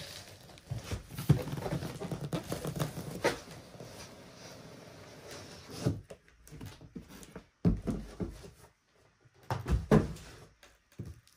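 Cardboard shipping box being handled and opened: flaps flexing and rustling with sharp knocks, then a few separate dull thumps as the heavy boxed machine is lifted out and set down.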